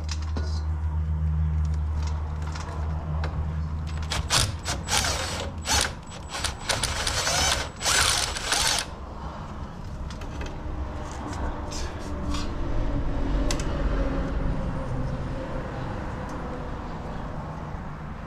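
Hand ratchet on a swivel socket clicking in quick runs as transmission pan bolts are worked loose, mostly in the middle stretch. A steady low hum runs under the first few seconds.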